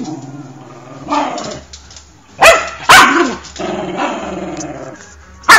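A Rat Terrier growling low, with three sharp barks, two close together about halfway through and one at the end.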